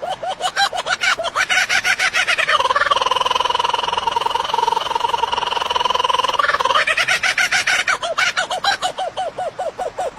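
A bird calling: a fast run of repeated notes that quickens and runs together into one long held note of about four seconds, then breaks back into repeated notes that slow down.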